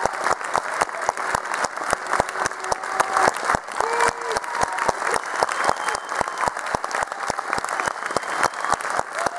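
Audience applauding, clapping together in a steady rhythm of about four to five claps a second, with a few voices calling out over it.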